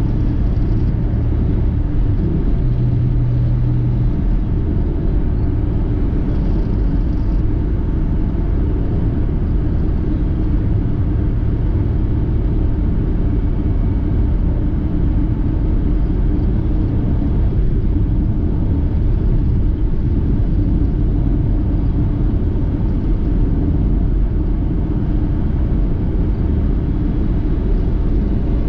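Car driving on the road: a steady low rumble of engine and tyre noise, with a low hum that briefly grows stronger a few seconds in.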